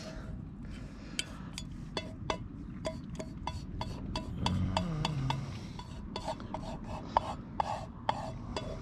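A dachshund eating its dog food mixed with rice from a bowl: an irregular run of small crunches and clicks against the bowl, several a second.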